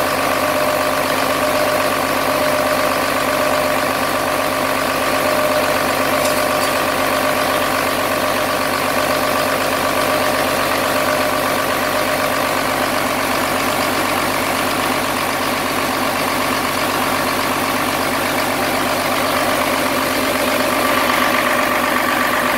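Cummins 5.9 L inline-six diesel running steadily on an engine stand during its break-in run-in after a rebuild, with no change in speed.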